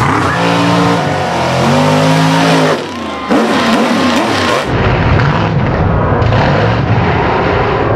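Monster truck engine running hard through a long jump and landing, a dense, loud engine-and-dirt sound that grows heavier in the lows in the second half.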